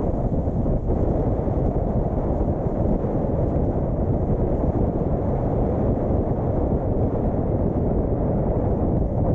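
Steady low rumble of wind on the microphone and road noise from a moving car, even throughout.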